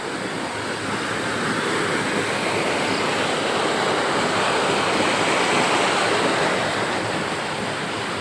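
Rushing water pouring over a small cascade in a flood-swollen stream: a steady rush that grows louder over the first few seconds and eases a little near the end.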